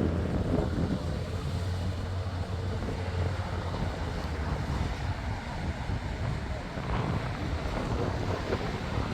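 Steady wind buffeting the microphone, a low rumble under the wash of ocean water.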